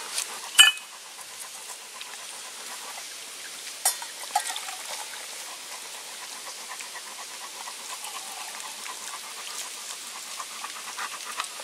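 A dog panting steadily, with a few light clinks of metal camp pots and cups.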